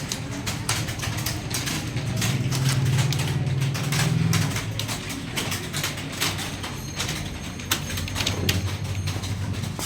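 Computer keyboard keys clacking in quick, irregular typing, with a low hum swelling in the background twice.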